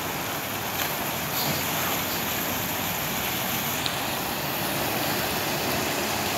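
A car driving slowly through deep floodwater, its wake rushing and splashing in a steady wash of water noise.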